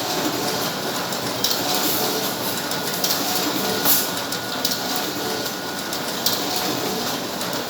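Canon imageRUNNER 5075 office copier running a double-sided print job: a steady mechanical running noise of paper feeding and rollers, with repeated sharp clicks as sheets pass through.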